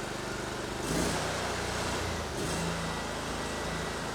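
Honda 22 hp V-twin engine on a Bercomac 54-inch snowblower running just after starting, its speed stepping up about a second in and changing again about two and a half seconds in.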